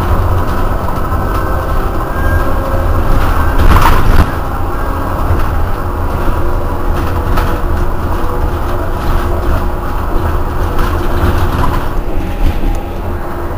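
Iveco Urbanway 12 city bus standing with its engine idling, a steady low drone. Around four seconds in, a louder rush of noise builds and then cuts off suddenly.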